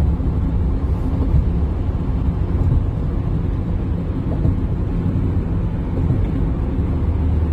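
Steady low road and engine rumble inside a car's cabin while driving at highway speed.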